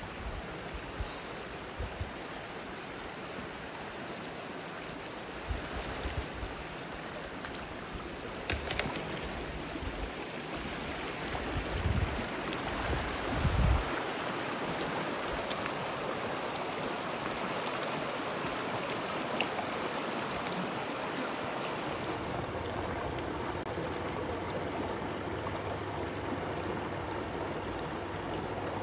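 Shallow mountain stream running over stones, a steady rush of water. Two low thuds stand out about halfway through.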